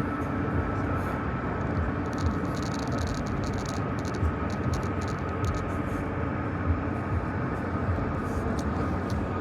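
Steady rumbling, hissing noise with a faint constant hum running through it, and a few light clicks.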